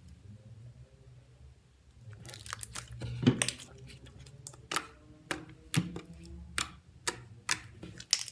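Clear slime being stretched and pressed by hand, with a crackly stretch a couple of seconds in, then a run of sharp pops and clicks about two a second.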